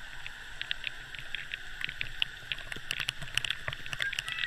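Water drops and spray pattering irregularly onto the camera, coming thickest about three seconds in, over the steady echoing din of an indoor water park.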